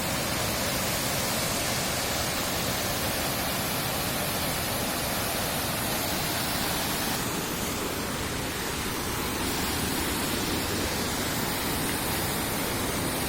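Steady rushing water, an even unbroken roar.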